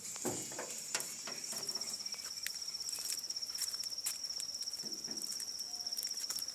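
An insect, of the cricket kind, trilling: a steady, high, fast-pulsing trill that begins a little over a second in, with scattered faint clicks and rustles.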